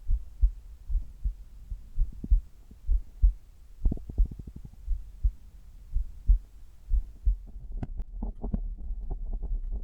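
A human heartbeat heard close up from the chest during sit-ups: a regular lub-dub of low thumps about once a second. Short bursts of rubbing and crackling come through about four seconds in and again over the last two seconds.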